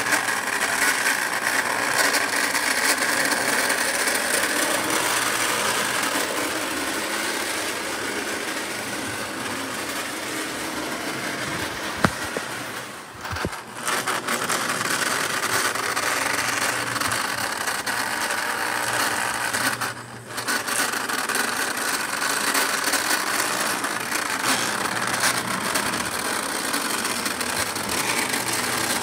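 Lionel postwar No. 51 Navy Yard switcher running along three-rail O gauge track, its small electric motor and gears whirring with a rattle of wheels on the rails. A sharp click comes a little before halfway, and the sound drops away briefly twice.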